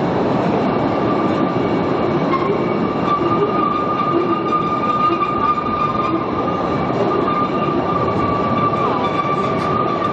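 Small cave tourist train running along its rails: a steady rumble and rattle of the moving cars. A steady high-pitched wheel squeal joins about a second in and keeps on.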